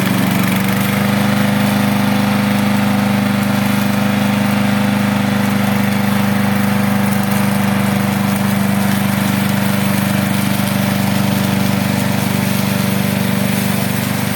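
Gasoline engine of a remote-controlled tracked slope mower running steadily at a constant speed, with a strong, even hum.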